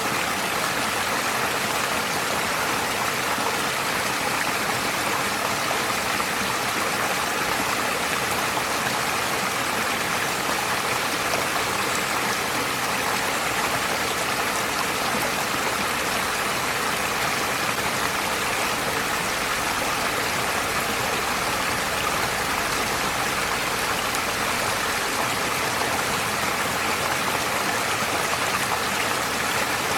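Forest stream flowing over stones: a steady, unbroken rush of running water.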